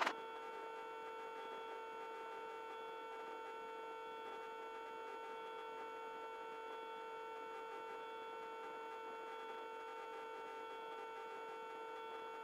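Steady pitched hum, unchanging throughout: a Robinson helicopter's cockpit hum as picked up through the headset intercom feed.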